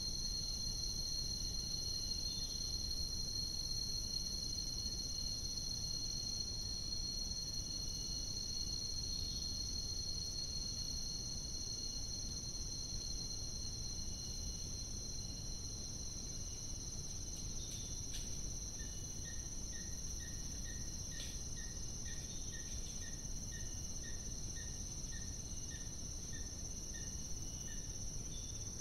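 Tropical forest insects keeping up a steady, high-pitched drone over a low hiss. In the second half a short note repeats about twice a second for several seconds, from an unseen animal.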